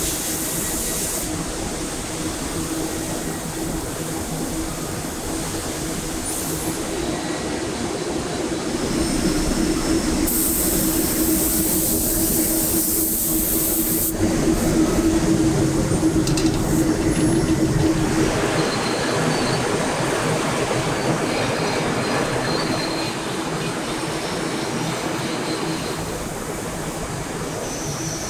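Coating-booth machinery running steadily with a low drone, and a compressed-air spray gun hissing for a few seconds near the middle while spraying non-stick coating onto a cast aluminium wok.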